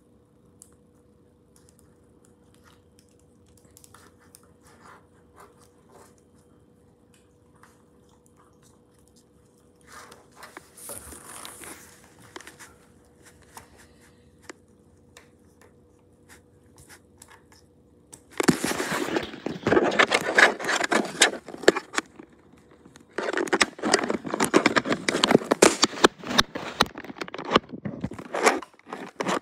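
Handling noise from a plastic action figure being worked by hand: scattered soft clicks at first, then two long stretches of loud scraping and crackling, each about four to five seconds, over a faint steady hum.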